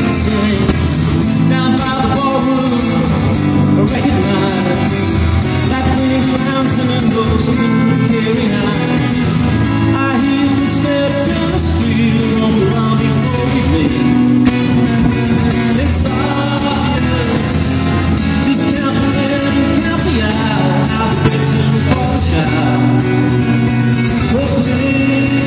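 A male singer performing live with his own acoustic guitar, a continuous song, recorded on a phone's microphone from the audience.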